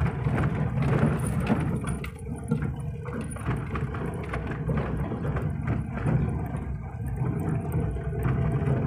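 Maruti Suzuki Eeco's four-cylinder engine running steadily as the van drives slowly over a rough dirt track, heard from inside the cabin: a low drone with frequent small knocks and rattles from the bumps.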